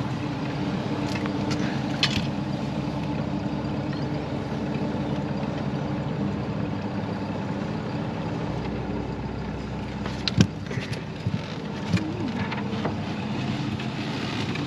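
Boat outboard motor running steadily, with a few sharp knocks about two-thirds of the way through.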